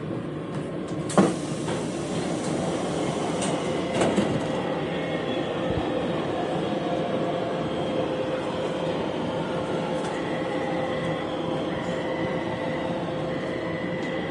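Taipei Metro train car running, heard from inside the car: a steady rumble with a steady motor tone. There is a sharp knock about a second in and a smaller clunk about four seconds in.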